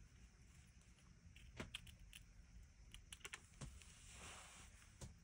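Near silence with a few faint light clicks and a soft rustle as sheer organza ribbon and its plastic spool are handled on a craft mat.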